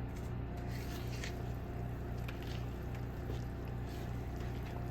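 Thick batter being folded in a mixing bowl, with soft irregular scraping and squishing, over a steady low electrical hum.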